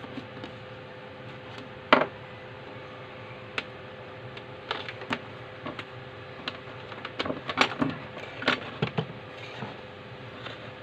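Scattered clicks and taps of multimeter test leads, wires and alligator clips being handled and set down on a workbench, the loudest a sharp click about two seconds in, with a cluster of lighter clicks later, over a steady background hiss.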